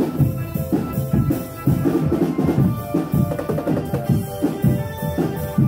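Live drum band music: marching drums beating a fast, busy rhythm under a held melodic line.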